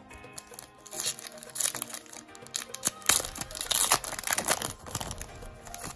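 Foil booster pack wrapper of Pokémon trading cards being torn open and crinkled by hand: a run of crackly rips and crinkles starting about a second in, loudest in the middle, with faint background music underneath.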